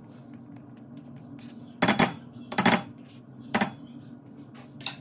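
A metal utensil clinking against a dish in a few short clusters of sharp knocks, as when stirring or tapping a spoon on a bowl of ranch dressing, over a steady low hum.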